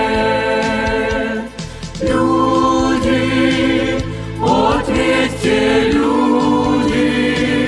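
A choir singing a Christian song with musical accompaniment: long held chords over a steady bass line, with a short break about a second and a half in.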